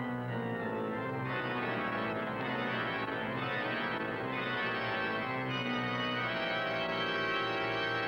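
Organ music playing full, sustained chords that change every few seconds, as a silent-film style score.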